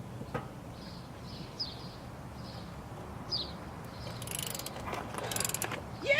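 Birds chirping in short falling calls. About four seconds in comes a rapid run of ratchet clicks, a ratchet wrench turning the socket that is JB-welded onto a seized locking lug nut.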